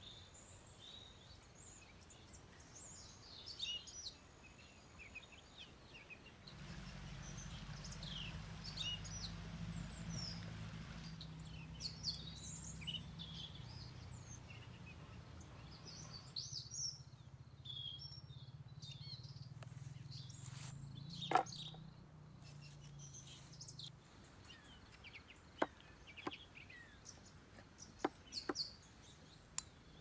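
Songbirds chirping and calling in woodland: many short, high calls scattered throughout. A low steady hum runs under the middle stretch, and a few sharp knocks come near the end.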